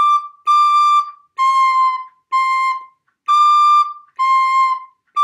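Soprano recorder playing a beginner exercise that moves between high D and high C, one held note about every 0.9 seconds with short breaks: D, D, C, C, D, C, with another D starting right at the end.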